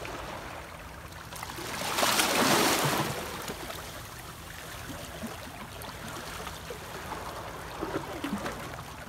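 Small sea waves lapping and washing among rocks at the shoreline, with one louder rush of water about two seconds in that lasts about a second.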